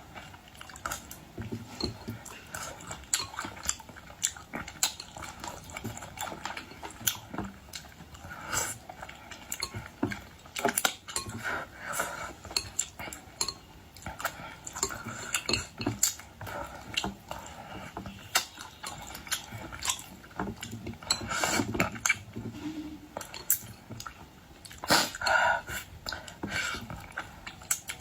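Close-miked eating of boiled shellfish: irregular cracks and clicks of shells being broken and peeled, wet chewing and sucking, and clinks of cutlery and dishes.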